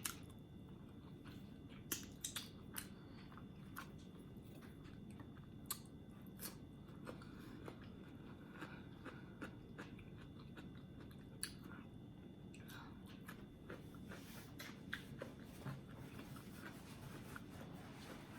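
A person chewing and eating food close to the microphone, with scattered sharp clicks and soft mouth smacks over a faint steady hum.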